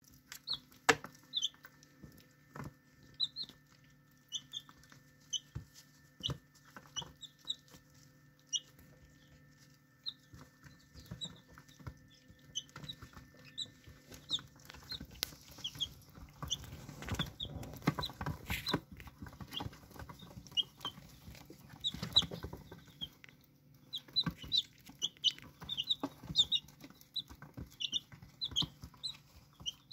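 Young chickens cheeping in short, high peeps while pecking crumbled cottage cheese off paper, their beaks tapping and their feet scuffling, busiest a little past halfway. A faint steady hum runs underneath and stops about halfway through.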